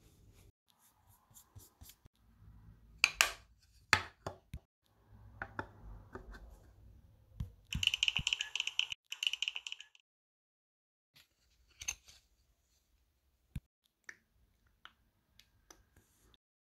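Desk-top paper-crafting sounds: scattered clicks and taps of paper and tools being handled, with a quick run of scratchy strokes for about a second and a half near the middle.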